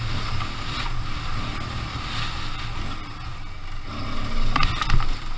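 Aprilia Tuareg 660's parallel-twin engine running steadily under way on a dirt trail, with wind noise over the microphone. A few sharp knocks come near the end.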